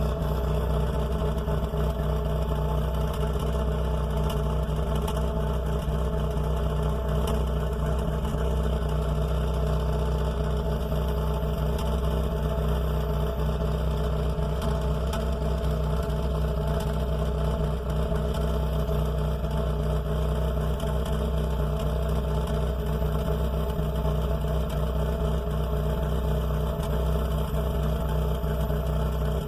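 Chevrolet Corsa 1.6 four-cylinder engine idling steadily while cold, heard at the exhaust pipe, with faint scattered ticks over the steady running. The owner finds it a strange noise from the exhaust that comes with the engine cold.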